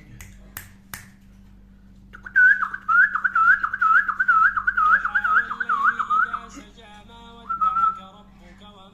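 Loud warbling whistle: about a dozen quick rise-and-fall notes in a row, then a shorter steady note near the end.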